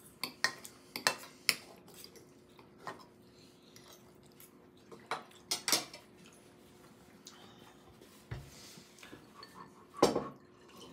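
Metal fork clinking and scraping on a dinner plate as food is cut and picked up: scattered sharp clicks, several in the first second and a half, a few more in the middle, and one louder knock near the end.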